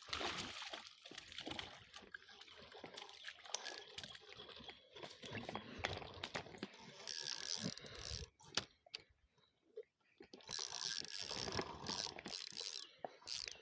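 Irregular splashing and sloshing of river water, with scattered clicks and knocks, as a hooked gar is pulled in and landed.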